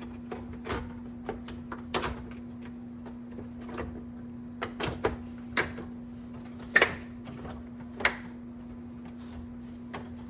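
Hard plastic parts clicking and knocking as a TSS garnish is laid into an aftermarket TRD Pro-style grille and its clips are lined up. Scattered clicks come one at a time, with the two sharpest a little over halfway through, over a steady low hum.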